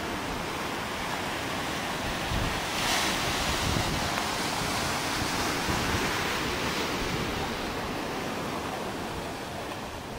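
Ocean surf washing onto a sandy beach, a steady rushing wash that swells louder about three seconds in, with wind buffeting the microphone.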